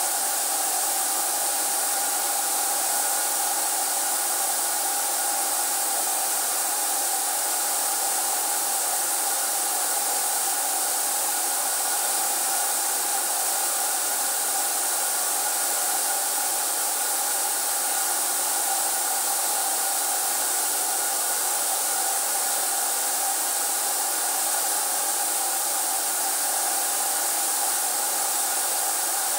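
Steady whir of an electric blower motor with rushing air, holding the same pitch and level without a break.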